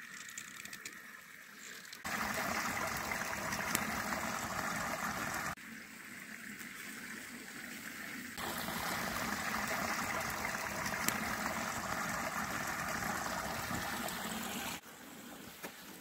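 Creek water running over rocks as a steady rushing, which jumps abruptly louder about two seconds in, drops back a few seconds later, and rises again for most of the rest. A couple of faint sharp pops are heard.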